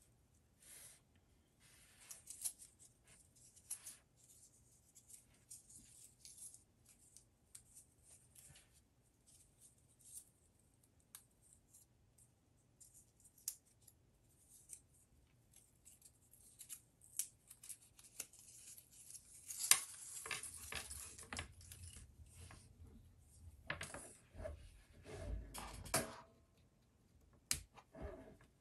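Hands unwrapping a coiled braided USB-C charging cable and handling it on a wooden table: light rustling of the wrapping, with small clicks and taps. It gets busier about two-thirds of the way in, and there are a few louder knocks near the end.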